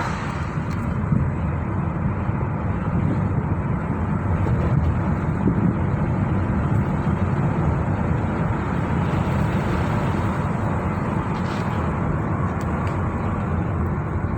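Car driving along a road: steady engine and tyre noise.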